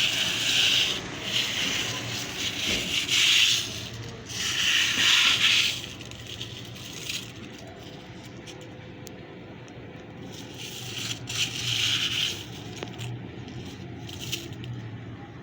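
Hailstones falling and clattering, a dense hiss of small hits that swells and eases several times, with scattered single ticks.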